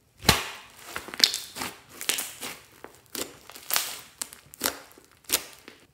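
Fluffy slime squeezed and kneaded by hand, giving an irregular run of wet crackles and pops as air trapped in the slime bursts. The sound starts suddenly a moment in and comes in about a dozen bursts.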